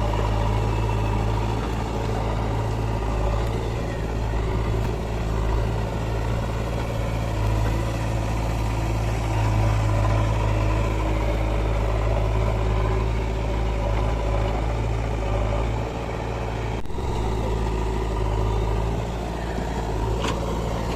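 Heavy diesel engine of earthmoving machinery running steadily with a deep, even hum, with a momentary break about seventeen seconds in.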